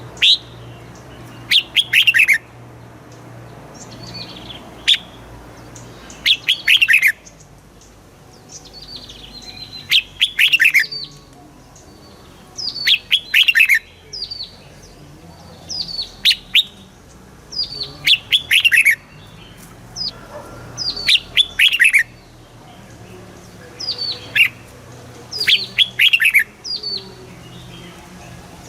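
Red-whiskered bulbul singing: short clear phrases of quick falling whistled notes, repeated every two to three seconds.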